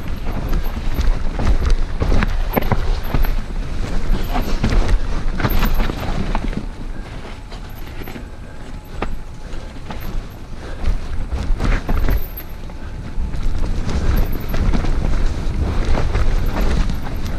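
Wind rumbling on the microphone of a camera on a mountain bike riding fast down a rough dirt trail, with the knocks and rattles of the bike over roots and bumps. It eases for a few seconds around the middle, then picks up again.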